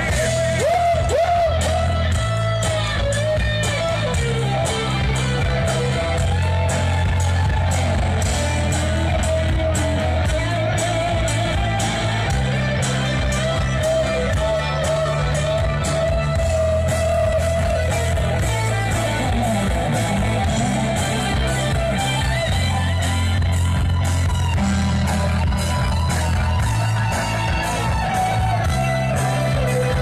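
A cover band playing amplified rock music live: guitar over a bass line that steps between notes and a steady drum beat, with a voice singing.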